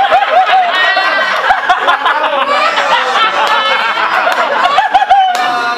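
Several people laughing and talking over one another.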